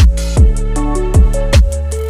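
Electronic background music with a deep kick drum on a steady, fast beat under sustained synth notes.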